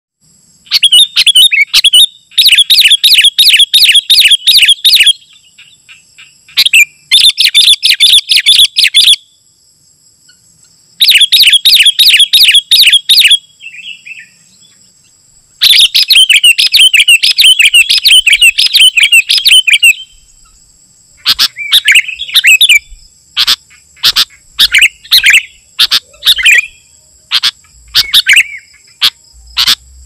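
Sooty-headed bulbul singing loudly: several bursts of rapid chattering chirps, each a few seconds long with short pauses between them, then separate short phrases repeated every half second or so in the last third. A faint steady high-pitched tone runs underneath.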